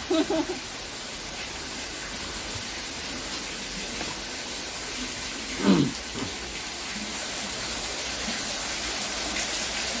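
Steady rush of flowing water from a rainforest stream, growing slowly louder. Short snatches of a voice come just after the start and again about halfway through.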